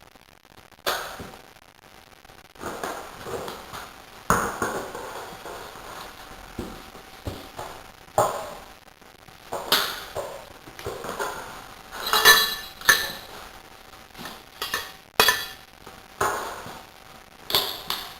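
Metal tools clinking and knocking against a wheel rim while a rear tyre is changed by hand: about a dozen irregular strikes, some with a short metallic ring.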